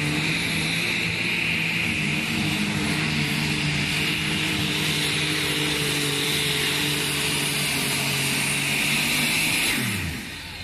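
Unlimited super stock pulling tractor's turbocharged engine running flat out under load down the pull track, a steady engine note with a high turbo whine. Near the end the pitch falls away and the engine winds down as the run ends.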